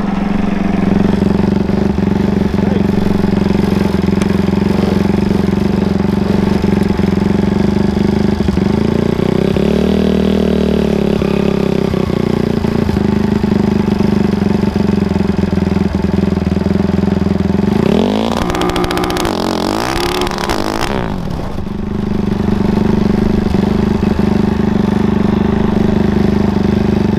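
Race lawn mower's engine running at a steady speed while its two-step launch control is checked, revving up and back down once about ten seconds in and several times more sharply around eighteen to twenty-one seconds in.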